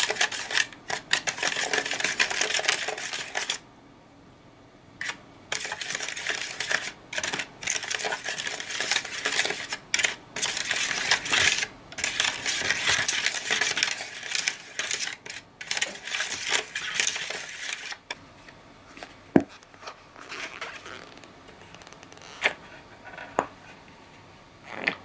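Small plastic spoon stirring and scraping fast against the bottom and sides of a plastic cup, mixing powder into water, in scratchy stretches with short pauses. The stirring stops near the end, leaving a few light plastic clicks and taps.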